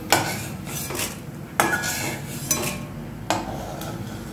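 Metal spatula scraping and knocking against a steel wok as deep-fried flattened rice (chire) is lifted out of the oil, with about four sharp strikes.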